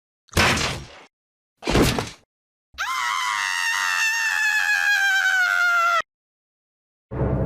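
A stock scream sound effect: a long, high scream of about three seconds that slowly falls in pitch and cuts off abruptly. It comes after two short, sudden sounds in the first two seconds.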